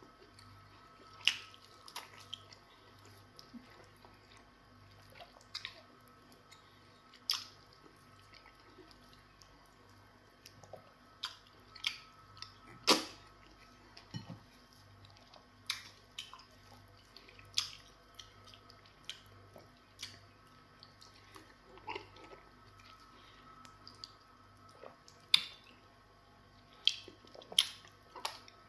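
Mouth sounds of a person eating semo fufu with spinach soup by hand: wet chewing and sharp lip smacks, one every second or two. A faint steady hum runs underneath.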